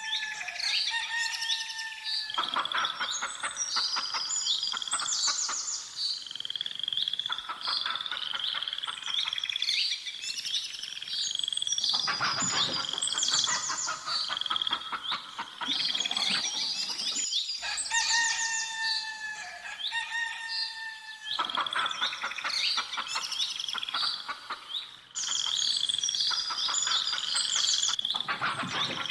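A rooster crowing, the crow ending just after the start and coming again about 18 seconds in, over constant chirping and twittering of small songbirds.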